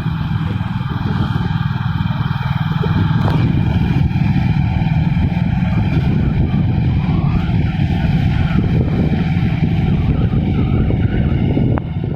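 A motor vehicle's engine running steadily with a dense low rumble, easing slightly near the end.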